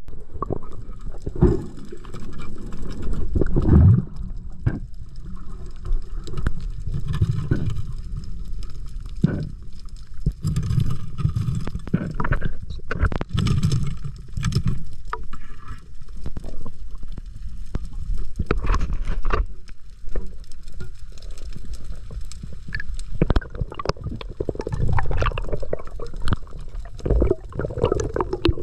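Muffled underwater noise heard through an action camera's waterproof housing: a low rumble of water moving, with scattered clicks, knocks and scrapes as the spearfisher works among the rocks with his speargun.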